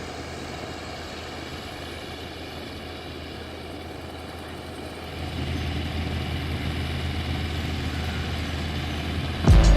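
Farm machinery engine running steadily, getting louder about five seconds in. Music starts just before the end.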